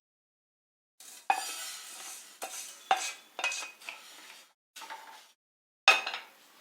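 A utensil scraping and scooping freshly dry-roasted idli rice out of a pan. It makes a series of sharp scrapes and clinks starting about a second in.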